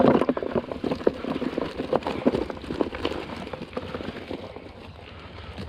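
Nylon yabby trap net being shaken out over a plastic tub: rustling and rattling of the net, with a rapid, irregular clatter of yabbies dropping and scrabbling onto the plastic. It is loudest right at the start and thins out toward the end.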